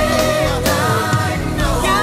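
Background music: a song with a singing voice over a steady beat and bass.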